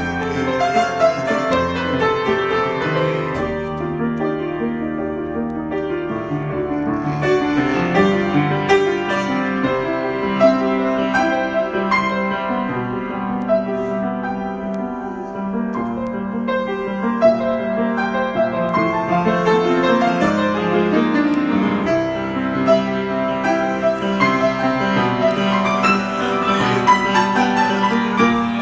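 Solo piano improvisation: chords and melody notes played without a break, with notes held and overlapping.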